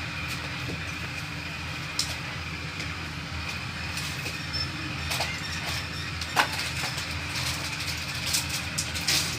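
A steady low mechanical hum with a faint high whine, and a few sharp light clicks scattered through it, typical of small engine parts and tools being handled during motorcycle engine assembly.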